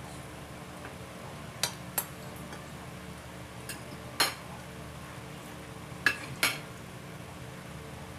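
A metal fork and spoon clinking and scraping against a ceramic plate: about five sharp clinks, two close together near the start, one in the middle and two more near the end. A steady low hum runs underneath.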